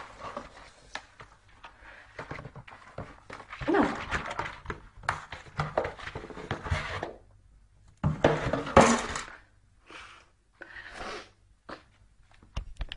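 A cardboard box knocking and scraping on a hard floor as a cat moves about with its head stuck inside it. Louder bursts of voice come about four seconds in and again about eight seconds in.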